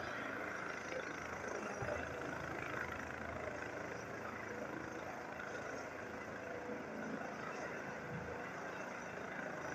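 Airbus EC135 helicopter lifting off and climbing slowly, its turbines and rotor making a steady, unbroken noise.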